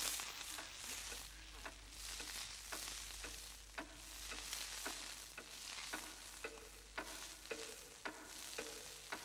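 Faint crackling hiss with scattered sharp clicks over a low steady hum.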